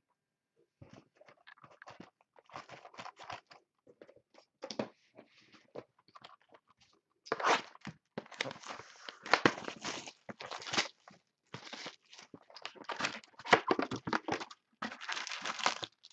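Plastic shrink-wrap being torn and crinkled off a sealed box of football trading cards by hand, then the box lid being opened. Light, scattered rustling for the first several seconds, turning into loud, dense crinkling and tearing from about seven seconds in.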